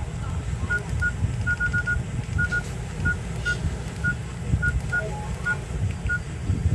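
Short, identical keypad beeps from a Nokia 108 feature phone as its buttons are pressed, about seventeen at an uneven typing pace, over a low rumble.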